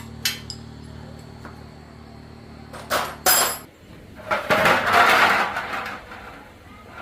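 Metal parts and tools clinking and knocking: a sharp click, then two loud knocks about three seconds in, then a longer clatter. Under the first half runs a low steady hum that stops a little past halfway.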